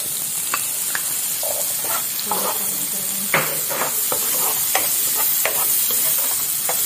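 Green peas frying in a hot nonstick pan, sizzling steadily, while a wooden spoon stirs them, giving short scrapes and taps against the pan several times.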